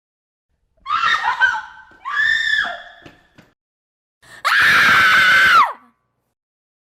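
A woman's screams of fear: two short, shrill shrieks about a second apart, then after a pause a longer, louder scream about four and a half seconds in, held steady and falling in pitch as it ends.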